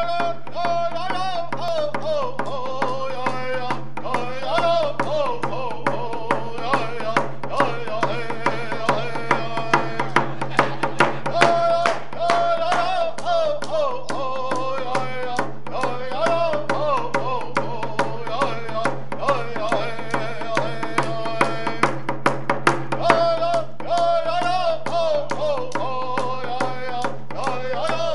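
A man singing a moccasin-game song while striking a rawhide hand drum with a stick in a steady beat; the drum strokes get louder in the middle.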